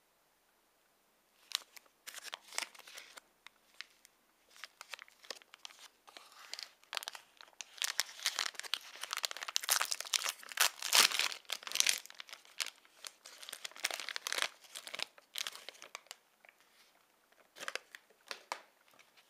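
A plastic snack wrapper being opened by hand, crinkling and tearing. It starts about a second and a half in, gets densest and loudest in the middle, then thins to a few crinkles near the end.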